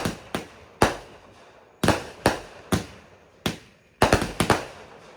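Fireworks going off close by: a string of about a dozen sharp bangs at irregular intervals, several coming in quick succession about four seconds in.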